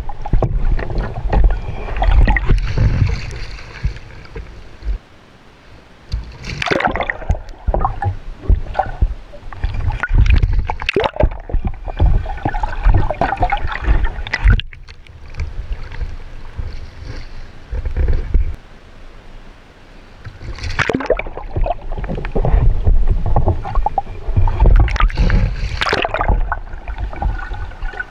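Sea water gurgling, rushing and splashing around a camera at or under the surface as a Greenland kayak capsizes and rolls back up. It comes in several uneven surges with a heavy low rumble and sharp splashes, with quieter spells between them.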